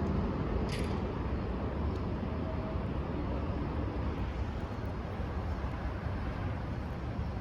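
Steady low rumble of road traffic and vehicle engines, with a brief hiss a little under a second in.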